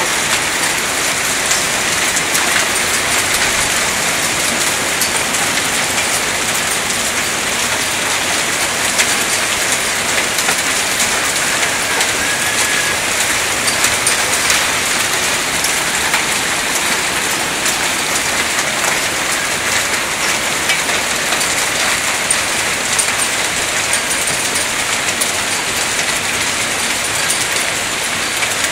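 Hail and heavy rain coming down hard: a steady, dense clatter of countless small impacts.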